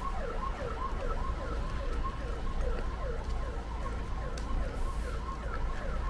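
Ambulance siren sounding in a fast repeating yelp, each cycle a quick downward sweep in pitch, about two to three a second, over a low steady rumble.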